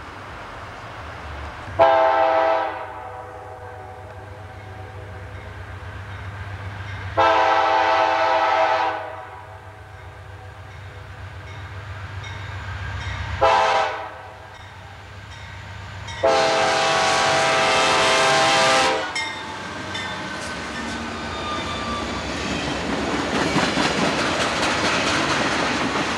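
Diesel locomotive's multi-chime air horn sounding four blasts, the third short, in the pattern of a grade-crossing warning. After the last blast, the rumble and wheel clatter of the passing freight train grow louder toward the end.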